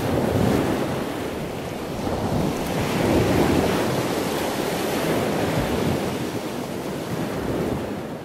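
A steady rushing noise that fades in, swells about three seconds in and eases toward the end.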